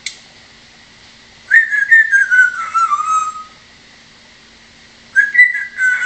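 African grey parrot whistling two drawn-out phrases, each sliding down in pitch: the first about a second and a half in, the second near the end.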